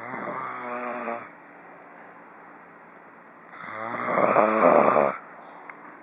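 A man snoring in his sleep: two snores, a short one at the start and a longer, louder one about three and a half seconds in.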